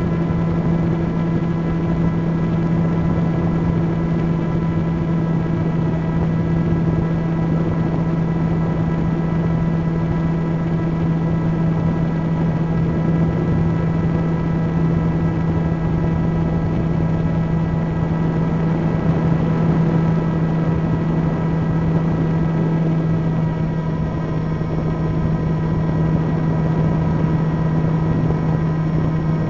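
Camera drone's electric motors and propellers humming steadily, heard from on board the aircraft: one low steady pitch with a stack of higher tones above it.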